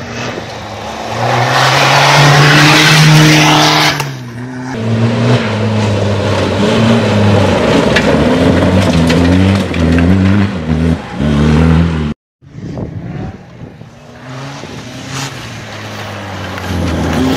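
Small off-road race car's engine at high revs as it passes on a dirt track, with a loud hiss of loose gravel and dust at first; then the revs climb and drop again about six times in a row. After a sudden cut just past the middle, the engine is heard again, quieter.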